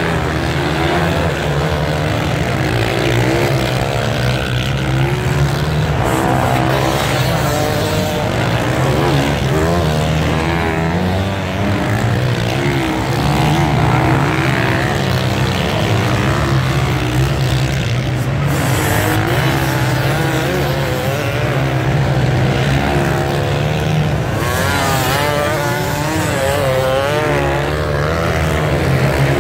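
A pack of motocross bikes racing through deep sand, many engines at once revving up and down, their pitches rising and falling and overlapping without a break.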